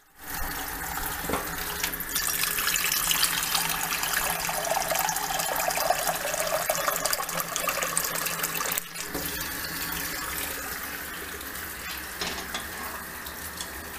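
Kitchen faucet running a steady stream into a stainless steel sink and into a metal saucepan, filling it with water. The rushing drops a little about nine seconds in.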